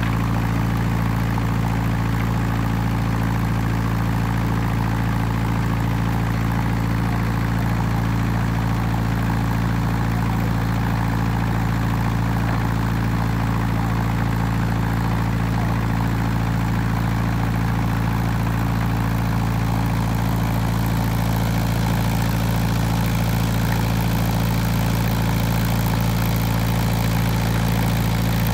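A heavy engine idling steadily: a constant low hum that neither rises nor falls.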